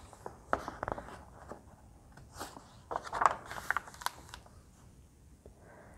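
Pages of a hardcover picture book being turned and then smoothed flat by hand: soft paper rustles and light taps in two short clusters, about a second in and again around three to four seconds in.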